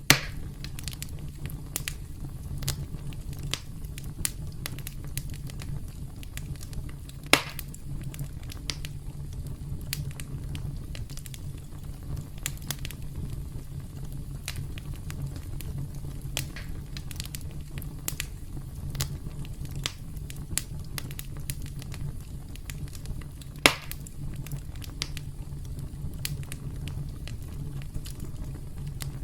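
Campfire crackling: a steady low rumble of burning wood with scattered small snaps and a few sharp, louder pops.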